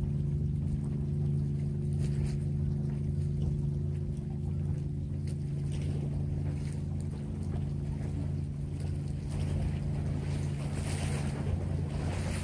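A steady low engine hum, unchanging in pitch, as from an idling motor. Wind and the wash of water rise over it near the end.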